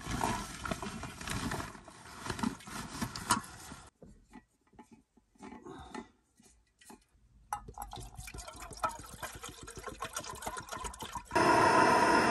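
Rustling and clattering as an integrated canister camping stove is taken out and assembled. About a second before the end, the stove's gas burner comes on abruptly and runs with a loud, steady hiss.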